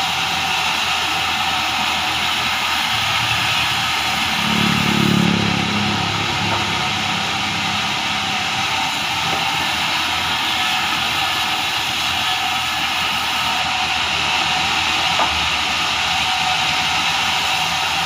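Large sawmill band saw running steadily with a loud hiss and hum as timber is fed through it. A brief lower-pitched swell comes about five seconds in.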